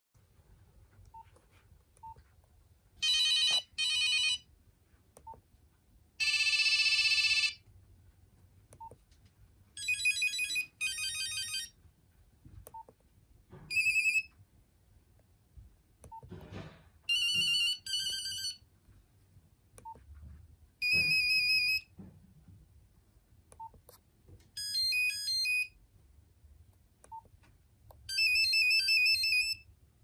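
Nokia 6190 mobile phone playing short previews of its monophonic ringtones one after another as its ringtone list is scrolled: about ten brief beeping melodic snatches, each cut off after a second or so. Faint ticks sound between them.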